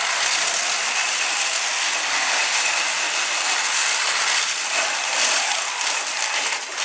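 Mecanum-wheel robot drivebase driving: its electric drive motors and gearboxes whirring steadily, with a faint steady high whine.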